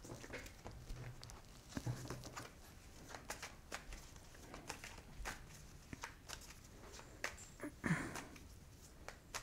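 Tarot cards being shuffled by hand: a soft, irregular patter of card edges sliding and slapping together. A short vocal murmur about eight seconds in.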